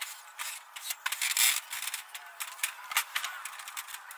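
A run of irregular clicks, knocks and rattles with a louder scraping rustle about a second and a half in, from metal gazebo parts and screws being handled during assembly.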